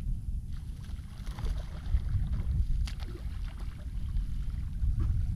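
Ambience of a fishing boat on open water: a steady low rumble of wind and water, with a couple of sharp clicks about three and five seconds in.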